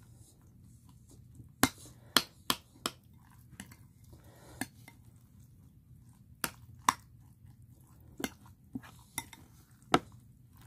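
A utensil clinking and scraping against a bowl as curry and rice are stirred together: about a dozen sharp, separate clinks at uneven intervals.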